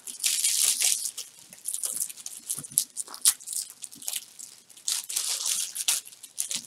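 Tissue-paper and clear cellophane gift wrap crinkling and rustling in the hands as a ribbon is knotted around the gathered neck of the wrap. The rustling comes in bursts, loudest in the first second and again about five seconds in.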